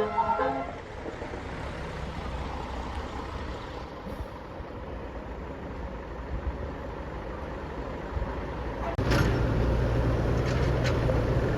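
A bus's multi-tone telolet horn tune breaks off in the first second, leaving a steady rumble of road traffic. About nine seconds in, a heavy vehicle's engine comes in suddenly, loud and close, with a steady low hum.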